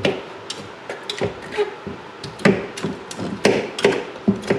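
A hand tool scraping gristle off a boiled bear skull, with irregular sharp clicks and knocks several times a second.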